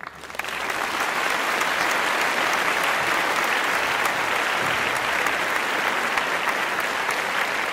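Applause: many hands clapping densely and steadily, swelling in over the first second.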